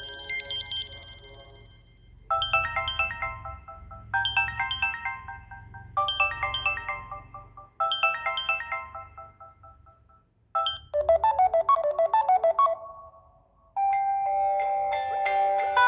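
Samsung Galaxy Young S6310 ringtones playing one after another. A previous tone ends first. A short chiming phrase then sounds four times, about two seconds apart, each dying away. A quick run of notes follows, and another tone with held notes begins near the end.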